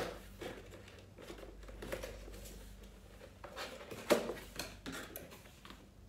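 Cardboard hair dryer box being opened by hand: a scattering of scrapes, taps and rustles as the lid and inner flaps are worked, with sharper knocks at the start and about four seconds in.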